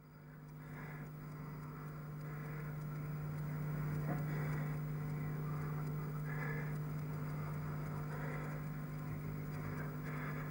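A steady low hum fading in at the start, with soft noises coming and going about every two seconds.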